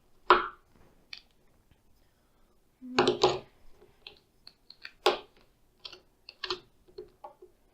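GAN 356 Air speed cube clicking as its layers are turned one at a time by pushes from a teacher's pointer: irregular short clicks and clacks, with a louder cluster about three seconds in.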